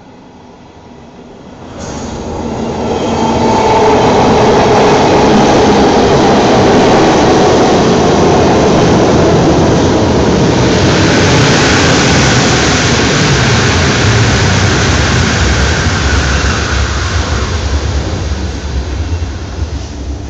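Dutch NS yellow-and-blue passenger train arriving along the platform. The rumble of its wheels on the rails swells quickly and stays loud. About halfway in it turns hissier, with a higher squealing tone as it brakes, then eases toward the end as it slows.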